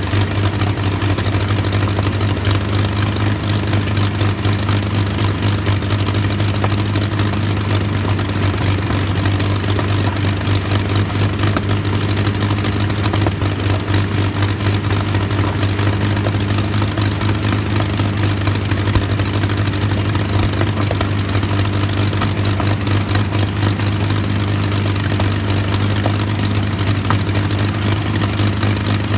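Rolls-Royce Merlin liquid-cooled V12 aero engine running steadily on a ground-run stand, propeller turning, with a loud, even low drone that holds constant throughout.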